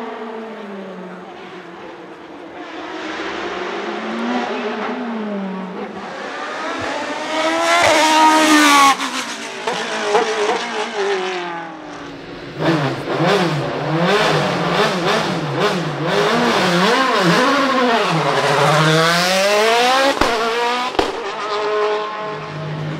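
High-revving hillclimb racing prototype engines at full throttle: one car accelerates through a bend with its revs climbing and dropping through gear changes, loudest as it passes about eight seconds in. A second car launches hard from the start line about halfway through, its revs climbing again and again through rapid upshifts, and near the end another prototype idles steadily on the line.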